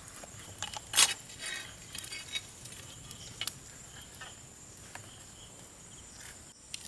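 Steady high insect drone outdoors, with scattered clicks and knocks of things being handled, the loudest about a second in.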